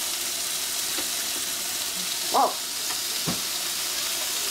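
Hamburger patties sizzling steadily on the hot grate of a Ninja Foodi Smart XL indoor grill while they are flipped with a spatula. There is a brief vocal sound, the loudest moment, about two and a half seconds in, and a light knock a second later.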